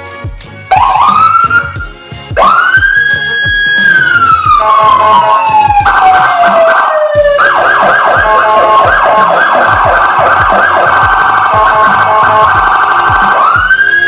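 Whelen HHS3200 electronic siren sounding through two Whelen SA314P speakers, switching between tones. A tone sweeps up, then a second sweep rises, holds and falls slowly, then a fast warbling tone runs for several seconds, and near the end the tone sweeps up again.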